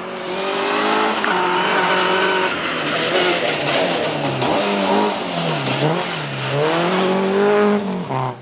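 Rally car engine revving hard on a gravel stage. Its pitch climbs and drops with gear changes and lifts, with a deep dip and climb a little past the middle.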